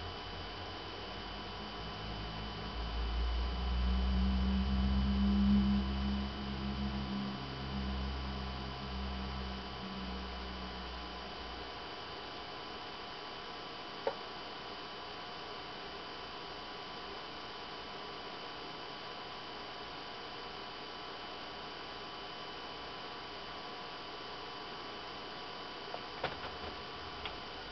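BenQ W500 projector's cooling fan running with a low hum that swells and then dies away about eleven seconds in, leaving a faint steady whine and hiss. A single click follows a few seconds later, and a few more come near the end.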